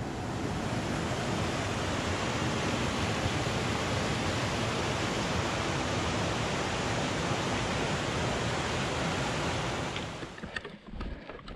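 Whitewater mountain creek rushing and cascading over boulders, a steady, even rush of water that drops away sharply near the end.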